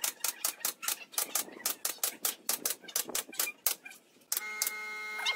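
Nail gun firing nails into pine pallet boards in quick succession, about four to five sharp shots a second. Just past four seconds in, the sound cuts and steady background music comes in, with more nailing clicks over it.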